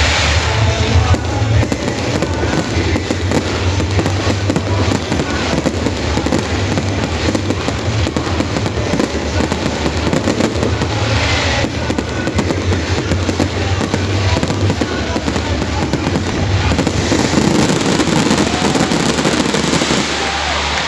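A dense, continuous barrage of fireworks bursting and crackling, with music playing underneath.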